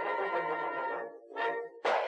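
Background music with brass instruments playing held notes; it drops away briefly about a second in, then comes back with a sharp, loud accent near the end.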